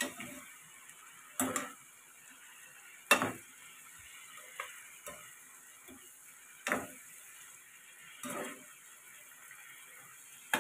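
Spatula scraping and knocking against a frying pan as cauliflower and shrimp are stir-fried, about six strokes a second or two apart with the loudest about three seconds in. Faint frying sizzle underneath.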